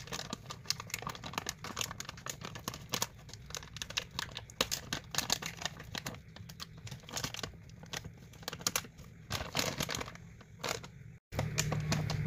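Plastic flour bag crinkling and rustling in irregular crackles as hands work a rubber band around a plastic bottle neck fitted into its opening.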